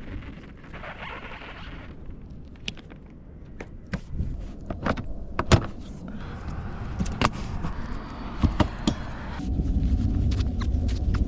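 Handling noises from work on a pickup's windshield: a string of sharp clicks and knocks over a low rumble that grows louder near the end.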